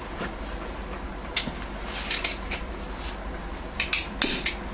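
Metal clicks and scrapes from hands working an oxy-acetylene welding torch and its gas control. The sounds come in scattered short bursts, thickest near the end.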